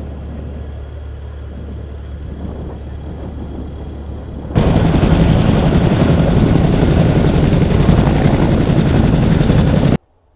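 A steady low rumble, then about four and a half seconds in a sudden cut to a much louder helicopter running close by, a dense low-heavy rotor and engine noise that stops abruptly near the end.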